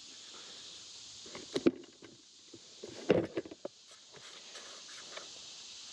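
Knocks and rubbing of a camera being handled and picked up: two loud bumps about a second and a half apart, the second followed by a few quick clicks. Behind them is a steady high buzz of insects.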